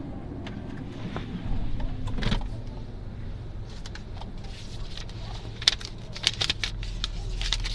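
Car engine running at low speed as the car pulls away, heard from inside the cabin with a steady low hum. It swells briefly about two seconds in, and a few sharp clicks and rattles come in the second half.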